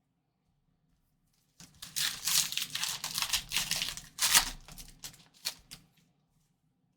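Foil trading-card pack wrapper crinkling as it is torn open, starting about a second and a half in, followed by a few short crackles of the wrapper near the end.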